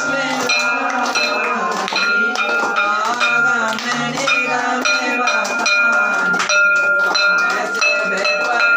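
A brass puja bell is struck over and over, ringing with a bright metallic tone. Hands clap along, and a group of voices sings an aarti.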